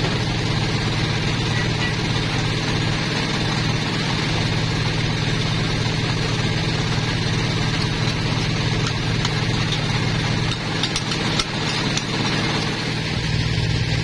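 Sawmill engine running steadily at idle, with a few light knocks about nine to eleven seconds in.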